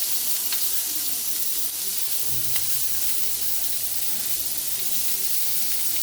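Chicken thighs sizzling on an indoor grill: a steady hiss of frying fat with faint scattered crackles.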